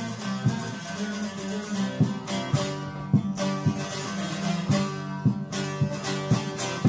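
Instrumental interlude of a Kurdish folk song: a plucked string instrument playing a busy melodic line over a steady beat, with a sharp stroke about every half second.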